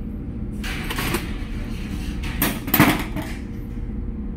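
Two short bursts of rattling and scraping from handling the hot plate and its disconnected wiring, one about a second in and a louder one near three seconds, over a steady low hum.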